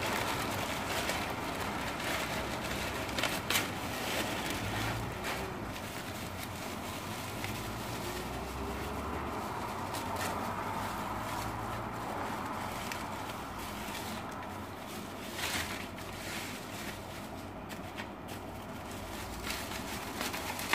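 Plastic packaging, a black plastic bag and then bubble wrap, rustling and crinkling in short scattered bursts as it is handled and pulled off, over steady background noise.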